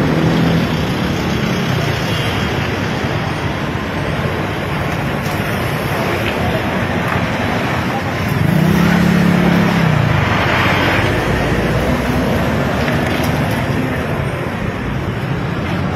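Steady road traffic noise from cars passing on a busy street. A louder pitched engine hum rises and falls for about two seconds, starting about eight seconds in.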